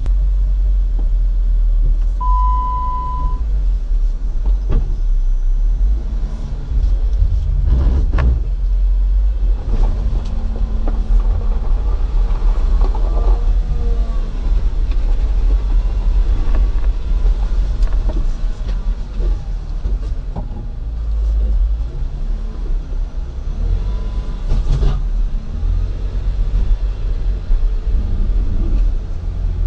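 Jeep Wrangler running at low revs with a heavy low rumble as it crawls up a rocky trail while being winched. A short single-pitch beep about two seconds in, and a few sharp knocks as it moves over rocks.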